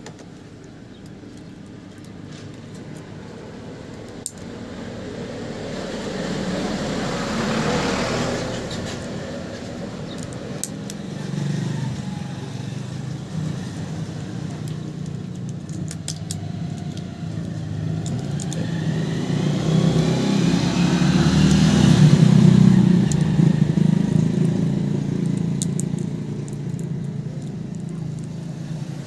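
Road traffic passing close by. Vehicle noise swells up and fades away, once about a quarter of the way in and again, louder with a low engine hum, about three-quarters of the way through. A few faint light clicks sound in between.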